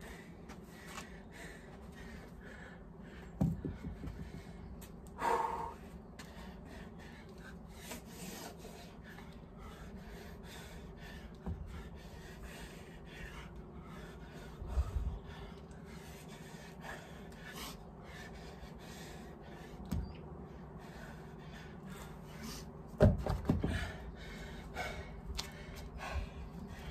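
A man exercising with dumbbells, breathing hard with gasps, over scattered thumps of feet and weights on a paved patio. The loudest thump comes a few seconds before the end.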